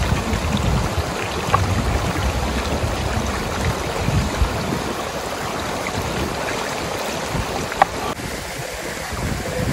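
Flowing river water rushing steadily, with a low rumble underneath and a brief sharp click about eight seconds in.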